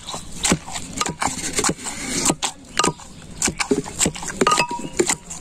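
Cooking utensils clattering: irregular sharp knocks and clinks of metal against a cooking pot, a few of them ringing briefly.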